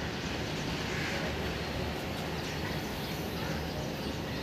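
Freight train of loaded flat wagons rolling past close by: a steady noise of wheels running on the rails.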